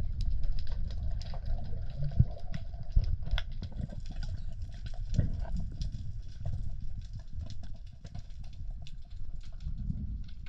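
Underwater sound picked up through a camera housing: a steady low rumble of moving water with scattered sharp clicks and crackles.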